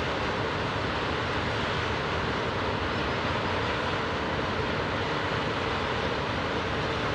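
Freight train of open wagons hauled by an electric locomotive rolling past, a steady rumble of wheels on the rails.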